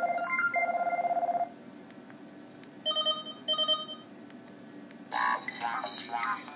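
LG KS360 mobile phone playing its built-in ringtones through its small speaker. A buzzy electronic trill sounds for about a second and a half, then come two short beeps, and another electronic tune starts about five seconds in.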